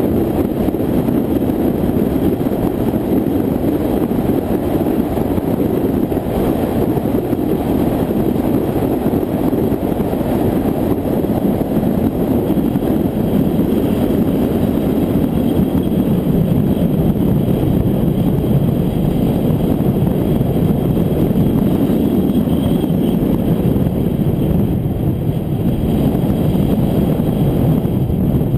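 Steady rush of wind and road noise from a car driving at highway speed, picked up by a camera mounted on the hood, with the engine and tyres mixed into the noise.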